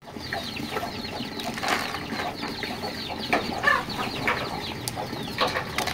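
A flock of domestic chickens and chicks calling, many short high peeps overlapping, each falling in pitch.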